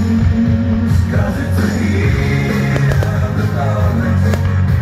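Loud band music with a singing voice, with a few sharp cracks near the end.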